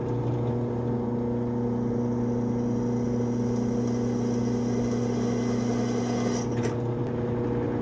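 Benchtop drill press motor running steadily while its twist bit drills smoothly through a clamped square metal tube.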